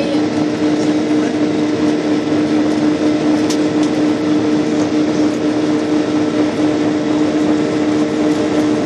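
Aircraft engines heard from inside the passenger cabin during the takeoff flight: a loud, steady drone with two constant humming tones over an even rushing noise.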